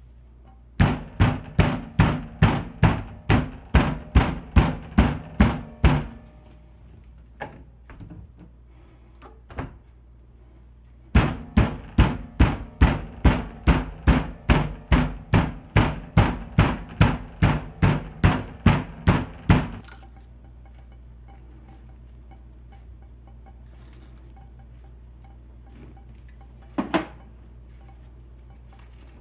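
Metal meat tenderizer pounding raw wild boar fillets on a plastic cutting board: two long runs of steady blows, about three a second, separated by a pause of a few seconds, and one more single knock near the end.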